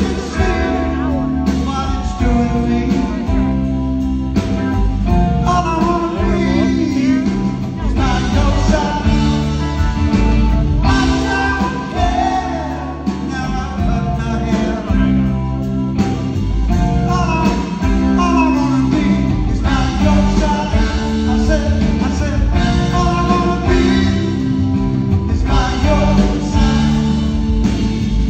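Live rock band playing a song, led by electric guitar over a steady bass, with a man singing.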